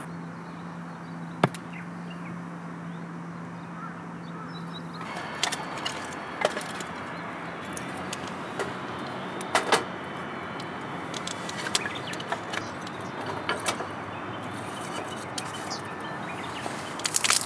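Wood fire crackling: irregular sharp snaps and clicks over a steady rushing background, getting busier after about five seconds. A low steady hum sounds for the first few seconds and then stops.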